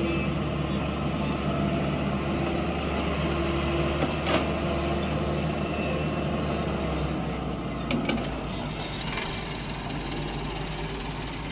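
Diesel engine of a Doosan DX140W wheeled excavator running under working load as it digs and swings, a steady low drone that eases slightly about seven seconds in. A couple of short knocks come about four and eight seconds in.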